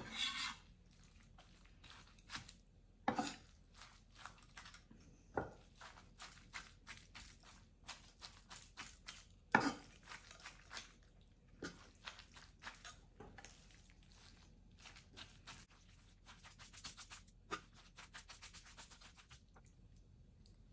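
Chef's knife chopping and folding a chicken salad on a wooden end-grain cutting board: faint, irregular taps and knocks of the blade on the wood, with a few louder knocks.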